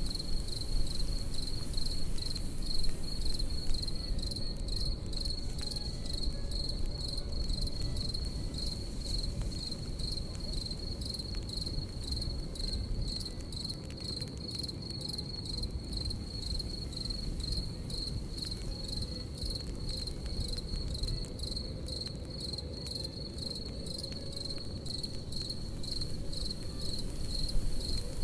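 Crickets chirping in a steady, fast-pulsing trill over a crackling campfire, whose small pops and low steady noise sit beneath.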